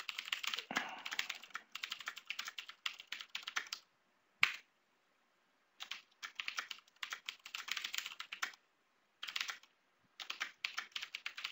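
Typing on a computer keyboard: quick runs of keystrokes, broken by pauses of a second or two about four seconds in and again around nine to ten seconds in.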